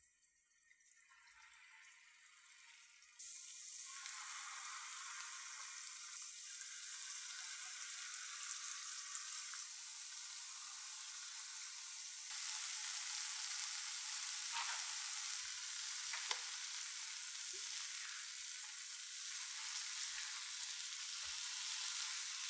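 Banana yogurt batter deep-frying in a pan of hot oil: a steady high sizzle. It is faint at first and steps up in loudness about three seconds in and again about halfway through, as more rounds of batter go into the oil.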